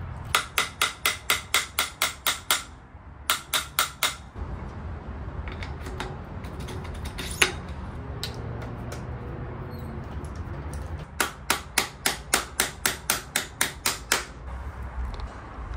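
Hammer tapping a star nut down into the steerer tube of a Marzocchi Bomber Z1 fork: quick, even metallic taps about four a second. There is a run of about ten near the start, a short run of four, one lone harder strike, and a longer run of about a dozen near the end.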